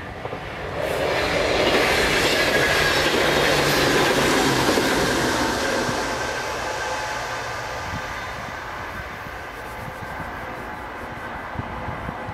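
NS ICMm (Koploper) electric intercity train passing at speed. Its rushing wheel and running noise swells about a second in, stays loud for a few seconds, then fades away as the train recedes.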